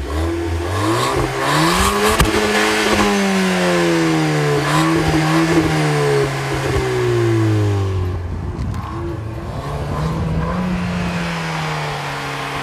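2014 Ford Fiesta ST's turbocharged 1.6-litre four-cylinder engine heard at its twin exhaust tips, revving up sharply for about two seconds and then winding down slowly. A second, smaller rise and fall in revs comes near the end.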